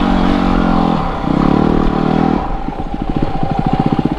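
Yamaha WR250R's single-cylinder four-stroke engine running while riding off-road. The throttle opens about a second in, then closes near the middle, leaving the engine chugging in distinct low-rev firing pulses that pick up again near the end.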